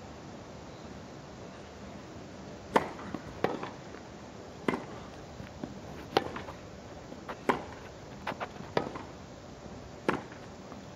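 Tennis ball struck by racquets back and forth in a rally: about seven sharp pocks, roughly one every second and a quarter, starting nearly three seconds in, over a steady background hush.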